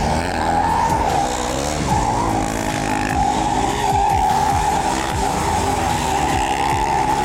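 Two KTM Duke motorcycles spinning circle burnouts on asphalt: rear tyres squealing steadily while the single-cylinder engines rev up and down. The squeal grows stronger about two seconds in.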